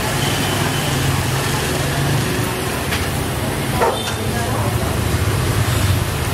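Busy street ambience: motorbike engines running with a steady low hum, and people talking in the background.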